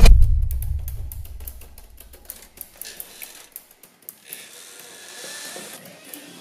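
A sudden deep boom that fades away over about two seconds, followed by a string of sharp, irregular clicks, with a soft airy hiss rising briefly about four seconds in.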